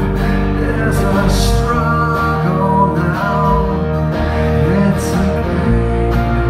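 Live rock band playing a slow song: electric guitars and bass holding chords under a male lead vocal.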